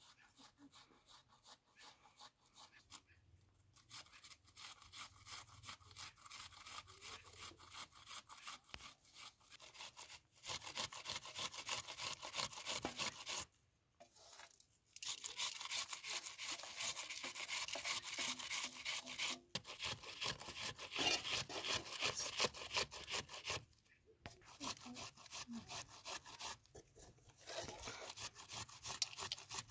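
Rapid, rhythmic dry rasping and rubbing from hands working seasoning over raw chicken pieces in an aluminium bowl, with a few short breaks.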